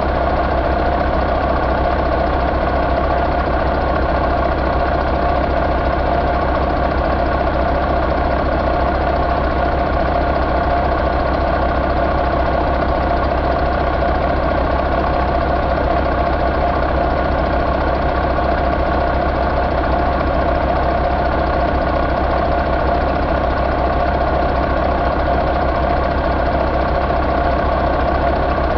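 Mack MP8 inline-six diesel engine running steadily at an even speed on an engine run stand, with no revving.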